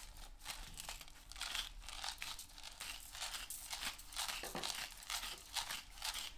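Salt shaken from a plastic salt shaker over mushroom caps: a quick, repeated rattle of salt grains against the plastic, with a light patter as they land.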